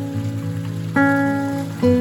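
Background music: plucked acoustic guitar, with new notes struck about a second in and again near the end.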